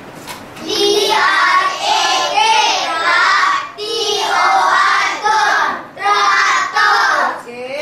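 A group of young children singing together in unison, in three long phrases with short breaks between them.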